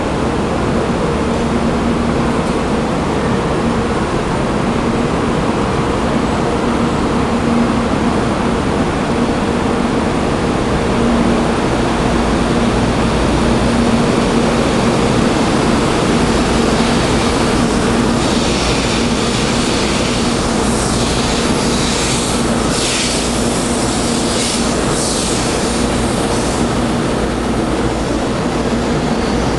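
Taiwan High Speed Rail 700T electric train pulling out of a station and gathering speed alongside the platform: a steady loud rumble with a low hum. From a little past halfway, a run of high hissing swishes comes as the cars pass faster.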